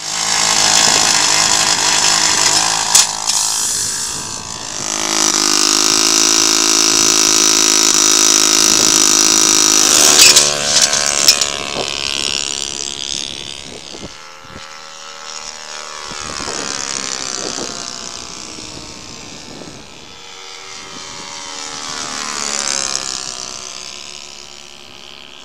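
Radio-controlled model airplane's engine running loudly at high power for about the first ten seconds, then fainter as the plane flies off, its pitch sliding down and up as it passes overhead. There are a few sharp clicks, around three seconds in and again about ten seconds in.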